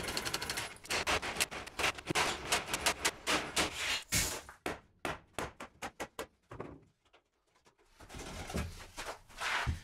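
Rapid sharp clicks, knocks and rattles of wire mesh being unrolled and fixed to a wooden lid frame, breaking off for about a second around seven seconds in, then handling noise.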